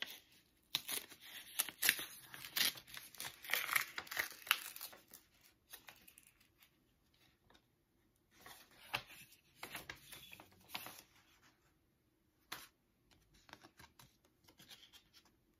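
A paper greeting-card envelope being torn open by hand: rips and crinkles of paper in two spells, with a pause between them.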